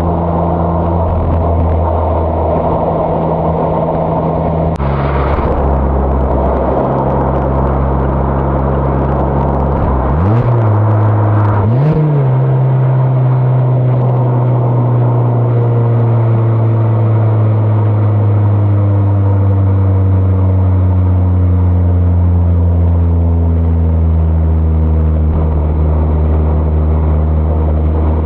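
Mazda ND Roadster (MX-5) four-cylinder engine and exhaust under way. It holds a steady note, then its revs rise sharply twice around ten and twelve seconds in, then sink slowly as the car settles to a steady pace.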